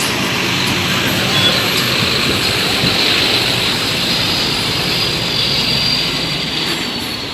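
Loud, steady street noise with a thin, high whine running through it that drops slightly near the end.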